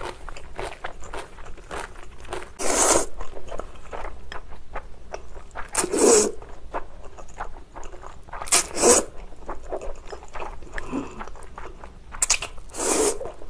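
Close-miked slurping of chewy spicy cold noodles (jjol-bibimmyeon), with wet chewing and small mouth clicks in between. Four loud slurps come about three seconds apart.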